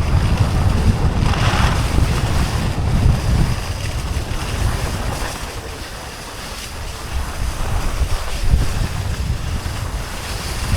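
Wind rushing over the microphone while skiing downhill, a gusty rumble, with the hiss of skis sliding and scraping over snow.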